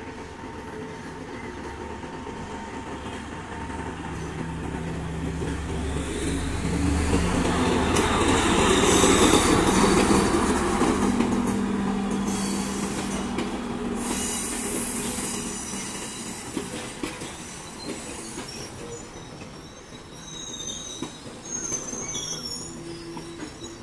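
Diesel multiple unit passenger train passing close by, its engine drone and rolling noise building to a peak about nine seconds in and then easing as the carriages roll past. Near the end, thin high wheel squeal from the train rounding a curve.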